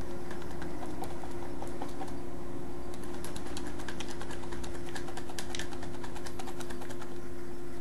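A steady low hum held on one pitch, with scattered light clicks and ticks on top of it.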